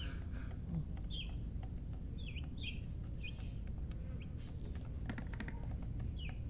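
Baby chicks peeping: short, high chirps that slide downward in pitch, coming every half second to a second. They play over a steady low rumble, with a few faint clicks in the second half.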